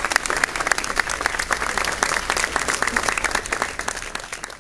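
Crowd applauding, many hands clapping at once; the applause fades out near the end.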